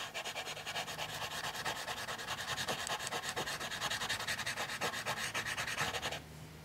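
Bar of dark chocolate scraping on drawing paper in rapid back-and-forth shading strokes, about eight to ten a second, stopping about six seconds in.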